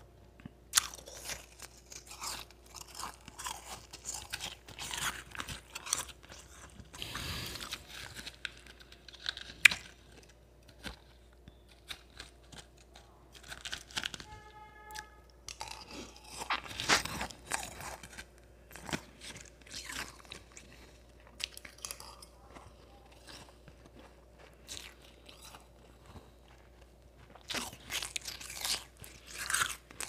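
Close-up crunching and chewing of powdery ice eaten by the spoonful, in irregular bursts with short quiet gaps.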